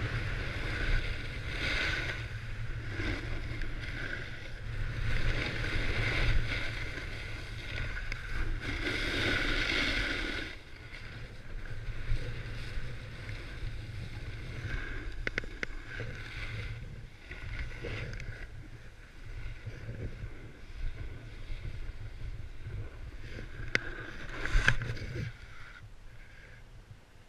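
Wind rushing over the camera's microphone while sliding down an icy, hard-packed ski trail, with the edges scraping on the ice. The rush swells and eases, is strongest in the first part, and dies away near the end as the rider slows to a stop.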